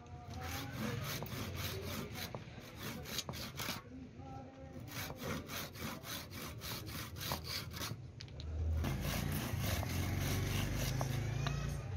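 Hand saw cutting through a wooden spinning top (lattu) held against a wooden block, in quick back-and-forth strokes about three a second, with a short pause about four seconds in. About nine seconds in, a steady low hum joins the rasping.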